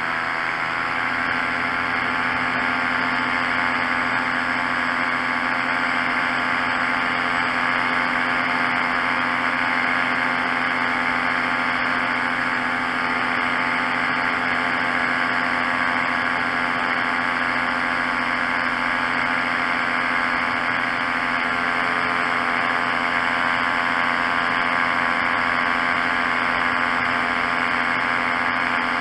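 Paramotor engine and propeller running steadily in flight, heard close up from the frame. The pitch rises slightly about a second in, then holds even.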